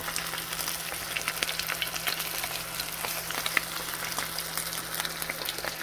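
Flour-dredged croaker pan-frying in hot oil in a cast-iron skillet: a steady sizzle full of small crackling pops.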